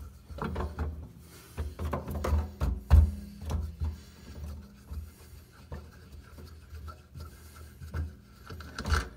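Metal parts of a sink-flange installation tool clicking and knocking as a wing nut is spun off its bolt and the pieces are handled, with scattered knocks and low thumps; the loudest knock comes about three seconds in.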